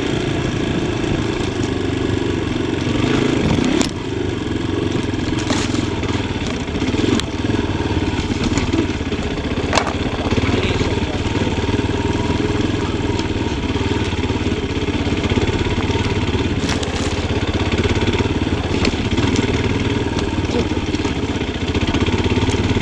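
Yamaha Tricker XG250's single-cylinder four-stroke engine running steadily on the motorcycle, with a couple of sharp knocks about four and ten seconds in.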